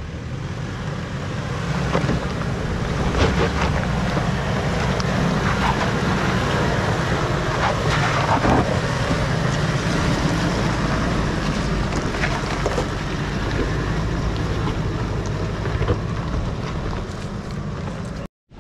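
Four-wheel-drive vehicle driving a rough track: a steady engine and tyre rumble with wind on the microphone and scattered knocks. It cuts off suddenly near the end.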